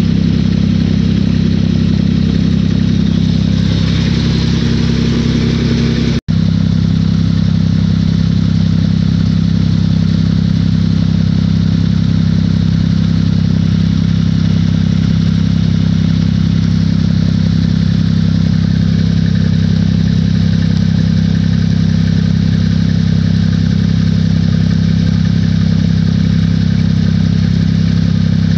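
An engine or motor running steadily at one constant low pitch, with a split-second dropout about six seconds in.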